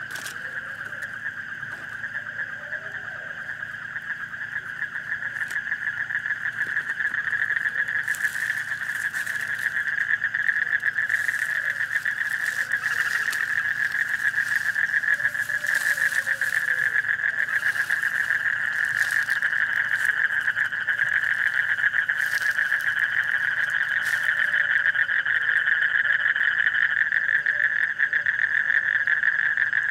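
Dense night chorus of frogs: a steady, high, fast-pulsing trill from many calling together. It grows louder over the first ten seconds or so, then holds steady.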